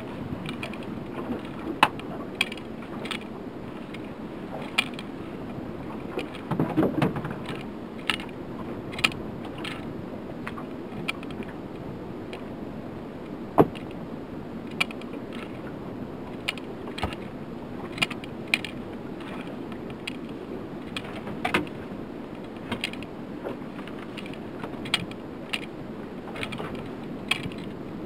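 Water washing against a small fishing boat, with scattered light clicks and knocks as fishing tackle is handled aboard; one sharper knock about halfway through.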